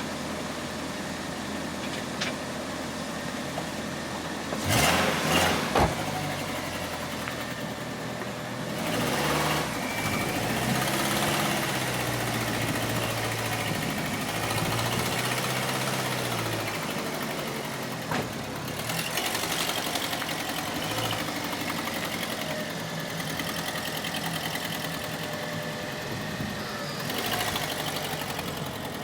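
Car engine running just after a cold start, mostly at a steady idle. A couple of sharp thumps come about five seconds in, then the engine note rises and falls several times in the middle as the car is moved, before it settles back to idle.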